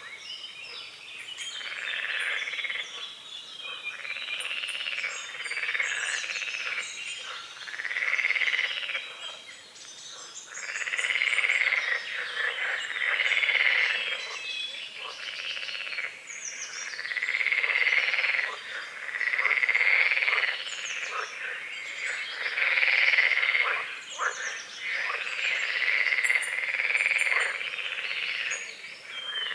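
A frog chorus croaking at a lake: long rattling bouts of croaking, each a second or two long, following one another with short gaps.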